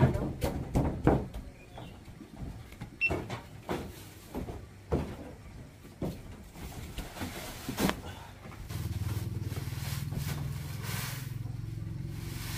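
Scattered knocks and footsteps on wooden floorboards, then from about nine seconds in a steady low mechanical hum.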